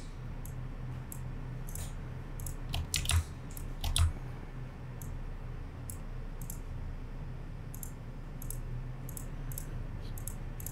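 Computer mouse clicking again and again, in irregular single clicks as objects are picked one after another. The loudest clicks come about three and four seconds in. A steady low hum runs underneath.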